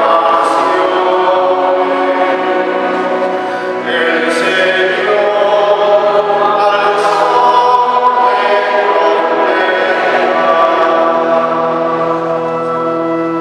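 A man singing a liturgical chant in Spanish at the lectern, in long held notes.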